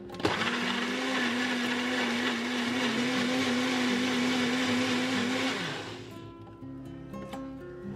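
Personal bullet-style blender motor switching on with a click as the cup is pressed down, running steadily with a whine for about five seconds while it purées chillies, shallots, garlic, egg and water into a wet paste. It then winds down with a falling pitch.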